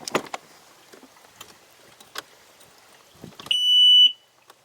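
A few light clicks and knocks, then about three and a half seconds in a single loud, steady, high-pitched electronic beep lasting about half a second.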